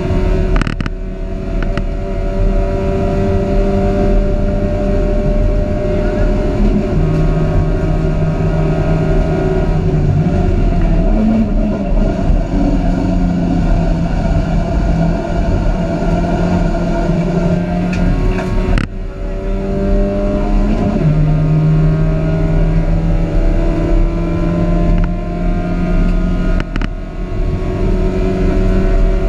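Dacia Logan Cup race car's engine heard from inside the cabin at racing speed, its revs climbing and falling through the gears. Three brief breaks in the sound come about a second in, past the middle and near the end.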